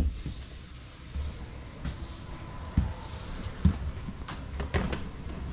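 Footsteps on an RV's floor: a few separate thumps over a low, steady rumble.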